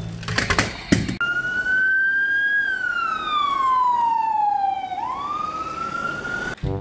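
Toy police car's electronic siren sounding one slow wail. The tone rises slightly, glides down for a couple of seconds, then sweeps back up and cuts off near the end. Background music plays briefly before it starts.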